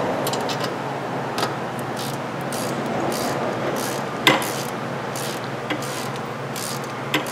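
Ratchet wrench clicking in short, irregular bursts as it turns a 7 mm socket to snug up the rear brake caliper bolts, with a sharper metal knock about four seconds in. A steady low hum runs underneath.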